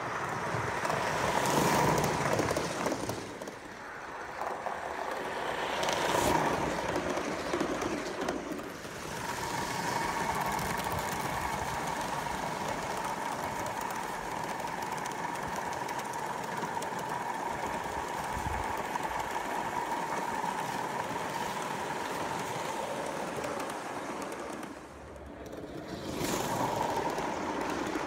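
Accucraft C38 gauge 1 live-steam model locomotive running with its train on garden railway track: the sound of the engine and wheels rolling on the rails, growing louder as it passes close, around two and six seconds in and again near the end.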